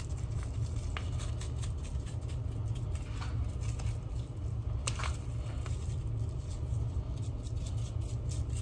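Seasoning powder shaken from a small paper packet onto raw beef steaks: faint pattering and packet rustles with a few light ticks, over a steady low hum.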